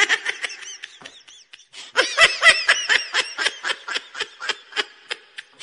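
High-pitched laughter sound effect: rapid giggling bursts, sparse at first, then a dense run of about five laughs a second from about two seconds in.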